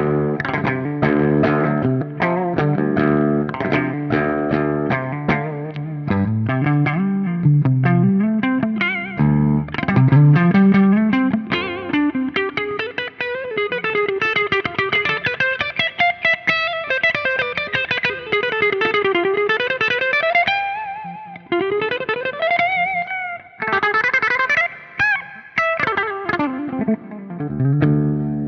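Electric guitar played through a Soldano SLO100 clone tube amplifier on a distorted channel. It starts with fast, rhythmic chugging chords, slides around for a few seconds, then moves into a single-note lead line with bends and vibrato.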